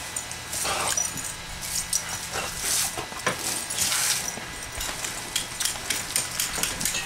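Garden hose water spraying and splattering in irregular hissing bursts as two dogs snap and lunge at the jet, with a few short dog noises.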